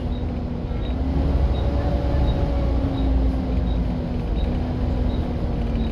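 Volvo B7TL double-decker bus running: a low rumble with a steady whine that drifts slightly in pitch, the 'hoovering' note this model is known for. A faint tick repeats about every three-quarters of a second.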